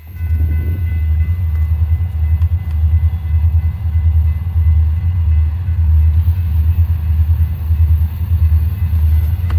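Conrail freight train rumbling past at close range: a loud, low, steady rumble that comes up suddenly at the start.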